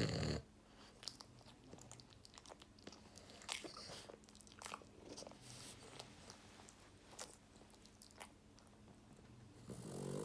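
French bulldog asleep and snoring: a loud snore ending right at the start and another building near the end. Between the two, a run of small sharp clicks and smacks from the mouth and nose.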